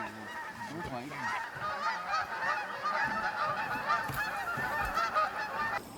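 A flock of birds calling, many short overlapping calls at once, cutting off suddenly near the end.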